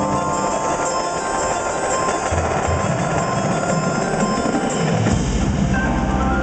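Indoor marching percussion ensemble playing: battery drums and cymbals together with front-ensemble marimbas and vibraphones, in a dense loud texture. A low bass sound comes in about five seconds in.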